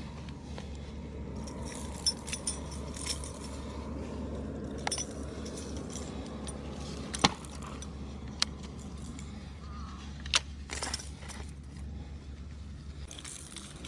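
Handling noise: scattered light metallic clinks and jingles with a few sharp knocks, over a steady low hum.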